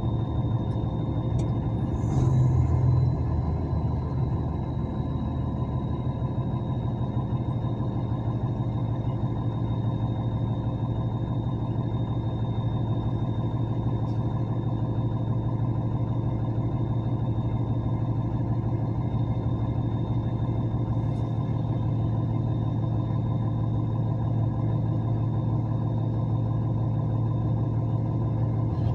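Truck engine running steadily in slow traffic, a continuous low drone with a faint steady high whine, swelling briefly louder about two seconds in.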